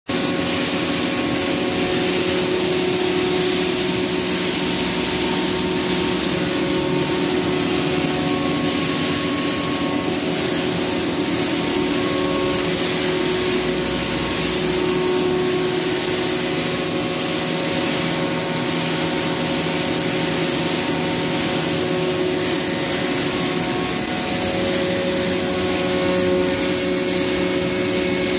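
Northwood CNC stone router at work, its water-cooled spindle tool grinding a granite or quartz piece. A steady hiss of coolant spray and grinding over the machine's hum, with several held tones that fade in and out.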